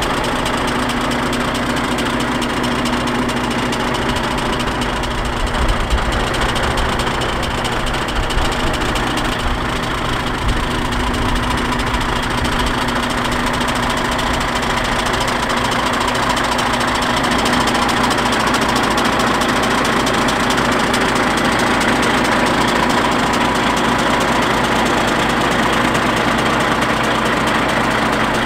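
DAF XF95.480 tractor unit's six-cylinder diesel engine idling steadily, a little louder about two-thirds of the way through.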